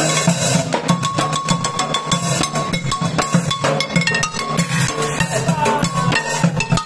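Street drumming on aluminium cooking pots and pans: wooden sticks beat a quick, steady rhythm, with the metal ringing after the strikes.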